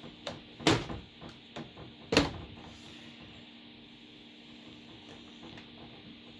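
Plastic knocks and clicks as a Compaq LTE Elite laptop is pushed and slid against its Compaq SmartStation docking station while being docked. There are two loud clunks in the first couple of seconds and smaller clicks around them. Under them runs a steady hum from the powered docking station's fan.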